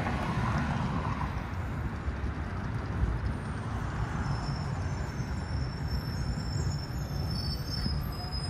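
City street traffic: a steady rumble of passing road vehicles.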